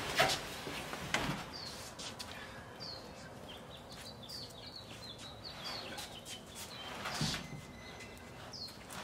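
Small birds chirping over and over with short, high calls. A few sharp knocks and scuffs from the wooden camper being shoved into the pickup's bed; the loudest come just after the start and about seven seconds in.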